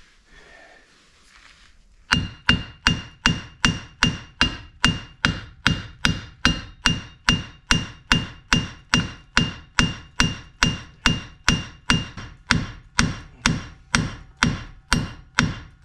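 Hammer driving a broken, over-torqued wheel stud out of a 2009 Chevy Impala's hub. From about two seconds in come steady blows, about two and a half a second. Most of them carry a thin metallic ring.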